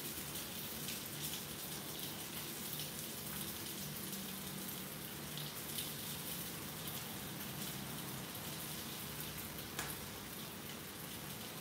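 Salmon steak frying in oil in a cast-iron skillet: a steady sizzle with scattered small crackles and pops of spattering oil.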